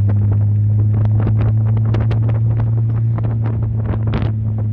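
The straight-six engine of a 1938 SS Jaguar 3½ Litre running at a steady speed: a strong, even low hum with many irregular sharp ticks and clicks over it.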